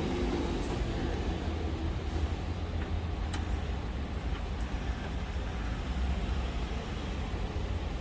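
Steady low rumble with an even hiss over it, and a faint click about three seconds in.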